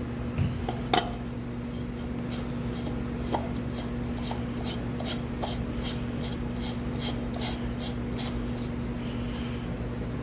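Red Line motor oil glugging out of its jug into a plastic funnel in an engine's oil filler opening, about three to four glugs a second for several seconds, after a sharp click about a second in. A steady electrical hum runs underneath.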